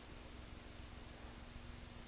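Faint steady hiss with a low steady hum and no distinct sounds: the recording's background noise.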